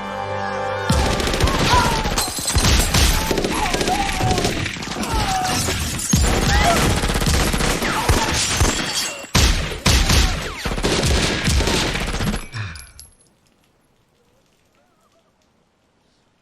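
Sustained automatic gunfire, many rapid shots over a film score. It starts about a second in and cuts off about thirteen seconds in.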